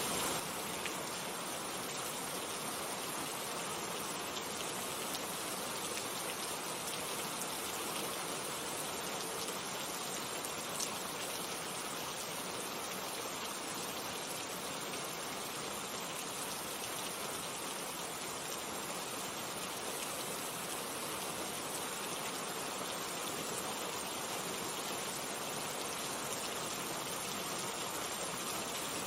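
Steady rain falling, an even hiss with now and then a single drop ticking out.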